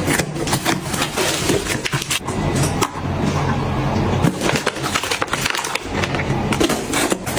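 Household items being handled and set down: a busy, irregular run of clicks and knocks over a constant rustle.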